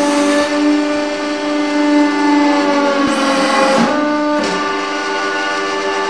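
Hydraulic press running: a loud, steady droning tone with several pitches stacked together and a hiss on top. The tone wavers and drops slightly about three seconds in, then settles again around four and a half seconds.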